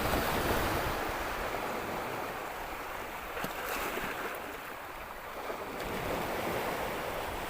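Sea waves washing onto the beach, swelling and easing.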